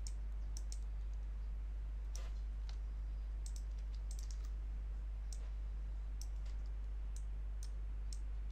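Irregular computer mouse clicks, about a dozen scattered short, sharp clicks, over a steady low electrical hum.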